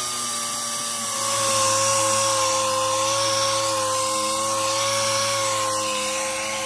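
Pneumatic random orbital sander running steadily with a high whine as its 100-grit pad is pressed onto a wooden chair seat, sanding off dried glue; the pitch dips slightly about a second in, then holds.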